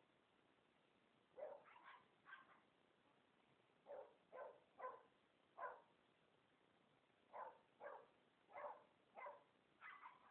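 Dogs barking in play while wrestling: about a dozen short, quiet barks in quick groups of three or four.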